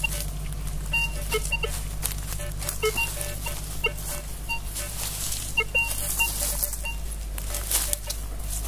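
Minelab Vanquish 540 metal detector swept through tall grass, giving short, scattered beeps at several different pitches as it picks up targets. Under the beeps is the rustle of vegetation brushing against the coil.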